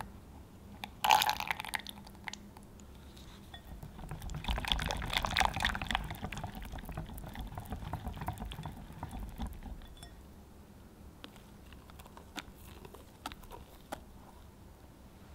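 Wire whisk stirring a thick cream cheese mixture in a glass bowl as melted gelatine is drizzled in: wet swishing, loudest around four to six seconds in. A brief sharp clatter comes about a second in, and light clicks follow near the end.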